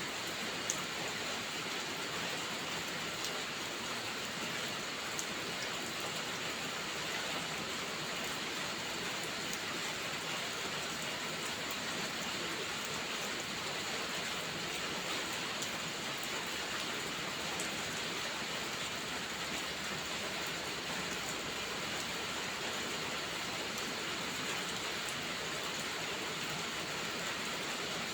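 Steady rain, an even hiss with a few faint scattered ticks and one sharper tick about a second in.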